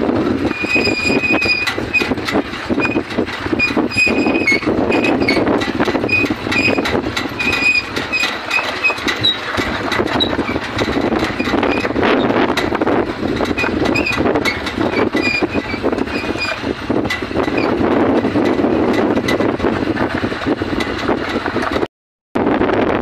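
Wind buffeting the microphone: a loud, rough rumbling noise full of crackles, with short high chirps scattered through the first part. It cuts out for a moment near the end.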